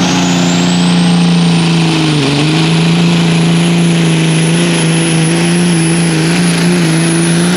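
Modified semi truck's Caterpillar diesel engine running flat out under full load while pulling a sled. The steady engine note dips briefly about two seconds in, and a high turbo whistle climbs during the first second, then holds.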